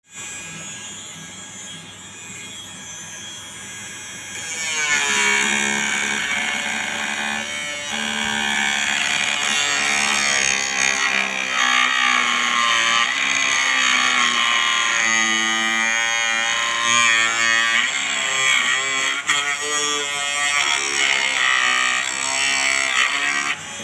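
Homemade angle grinder driven by a 775 DC motor running with a high whine that gets much louder about four and a half seconds in. Its pitch wavers up and down.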